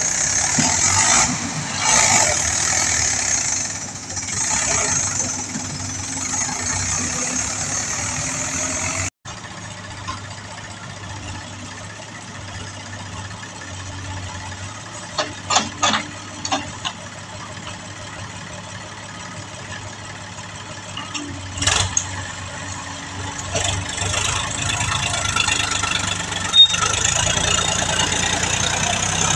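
Diesel tractor engines running under load while pulling trailers through mud: first a Mahindra 575 DI, then, after a sudden break about nine seconds in, a Powertrac Euro 50 hauling a soil-loaded trailer. The first part is louder and carries a strong hiss over the engine.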